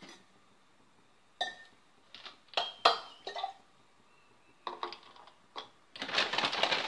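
Scattered clinks and knocks of utensils against a cooking pan, about eight sharp strikes, then a dense crackling hiss starting about six seconds in.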